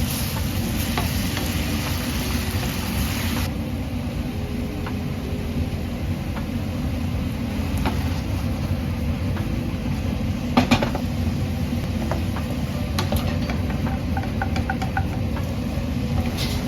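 A pan of shimeji mushrooms, onions and garlic simmering in soy sauce and sake as it reduces to a sauce. It sizzles strongly for the first few seconds, then more quietly, with stirring and a few knocks of a utensil against the pan, the loudest about ten seconds in. A steady low rumble runs underneath.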